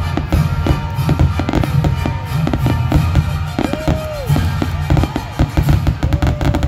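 Aerial firework shells bursting in rapid succession, several bangs a second, over music playing.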